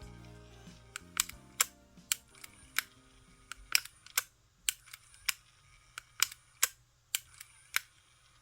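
Sharp, irregular clicks, about two a second, of small hard parts being handled, against background music that fades out about four seconds in.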